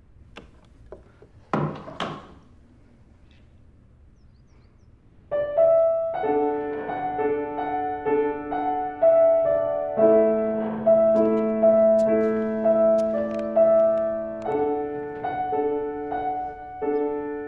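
A short wooden knock and scrape as the keyboard lid of a Lirika upright piano is opened, then from about five seconds in the piano is played: a slow melody of single notes over held chords.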